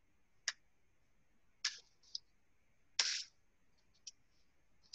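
A handful of short clicks and slaps from a color guard rifle being released and caught in the hands during a spin phrase, the strongest about three seconds in.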